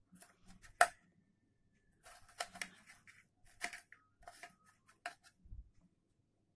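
Kitchen knife slicing a tomato on a plate: irregular clicks and taps as the blade cuts through and meets the plate, the sharpest about a second in.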